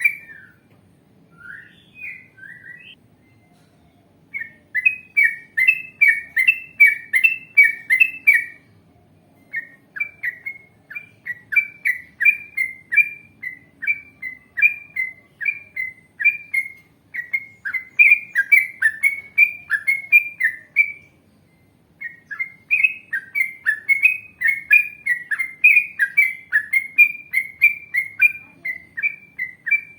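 Yellow-vented bulbul (trucukan) singing long runs of rapid, repeated chattering notes, about three a second. There is a short break about a second in and another shorter one two-thirds of the way through.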